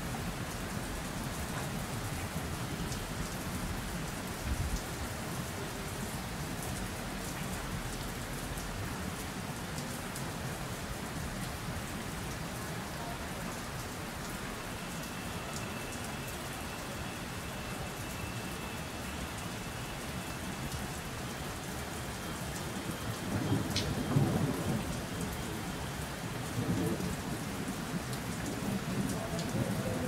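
Steady rain falling, with a low rumble of thunder swelling in the last several seconds.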